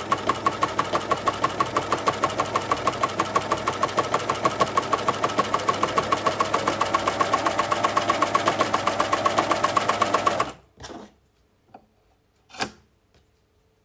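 Baby Lock Flatlock coverstitch machine sewing at a steady speed with a rapid, even stitching rhythm, feeding knit fabric and binding tape through an 18 mm three-fold binder. The machine stops abruptly about ten seconds in, followed by a few light clicks and a scissor snip.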